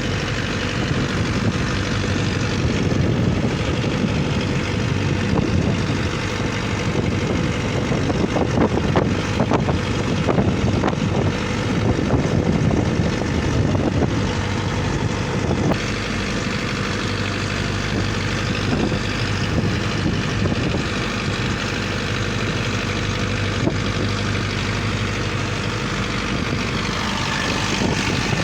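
An engine running steadily, a constant low hum under a rushing noise, easing slightly about halfway through.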